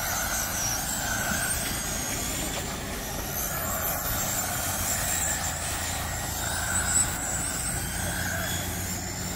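Several radio-controlled dirt-oval race cars running laps together. Their motors make a high whine that rises and falls as the cars pass.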